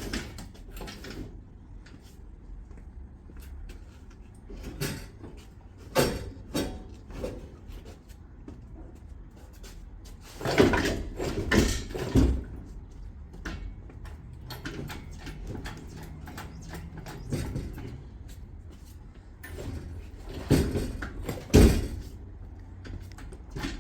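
Irregular metal knocks and clunks from the engine being pulled out of a car's engine bay on a rope, over a low steady hum. The loudest clusters come about ten to twelve seconds in and again about twenty-one seconds in.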